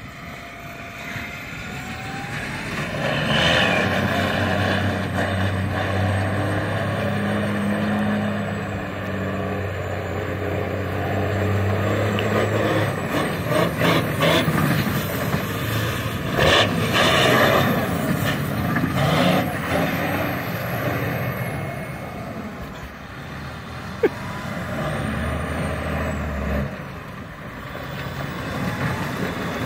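Western Star semi tractor's diesel engine running hard as the truck spins half-donuts on snow, its drive tyres spinning. The engine holds a steady note early on, then rises and falls, with several short rushes of noise in the middle and a sharp click about two thirds through.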